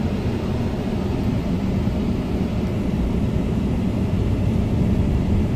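Steady road and engine noise of a moving vehicle, heard as an even low rumble with a hiss; it cuts off abruptly near the end.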